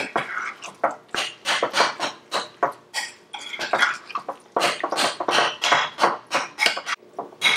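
Metal spoon stirring and folding guacamole in a bowl: wet mixing strokes with the spoon knocking and scraping against the bowl, about three strokes a second.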